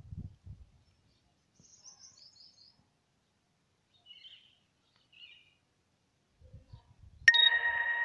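Parakeets calling: a few faint, short, high chirps, then about seven seconds in a sudden loud, harsh screech held on one pitch for over a second.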